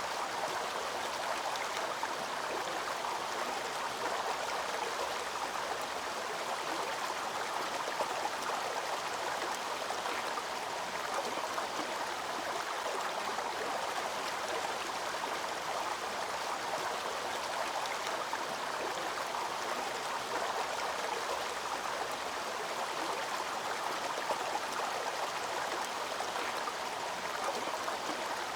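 Waterfall running steadily: an even, unbroken rush of falling and splashing water.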